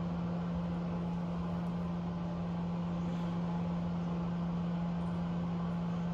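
A steady low hum with one constant tone, over a faint even hiss; nothing else stands out.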